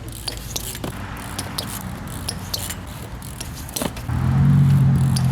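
A motor vehicle's engine hum comes in loud and steady about four seconds in, over scattered light clicks and scrapes.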